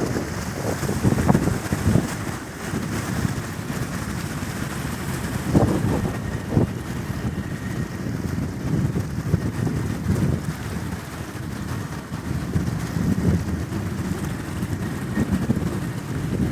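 Wind buffeting the microphone in uneven gusts, a low rumbling rush that surges and drops.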